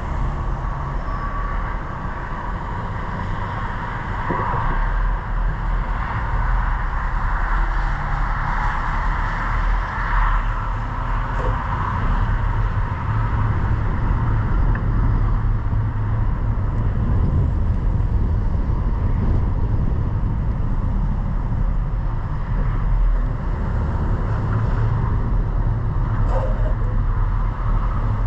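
A car driving, its engine and tyres making a steady low rumble.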